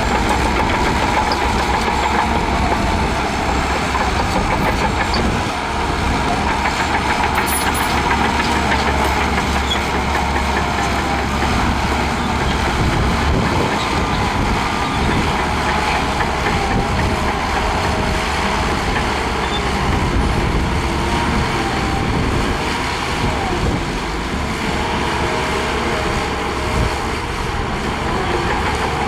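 Shantui DH17C2 bulldozer's diesel engine running steadily under load, a loud, constant low rumble.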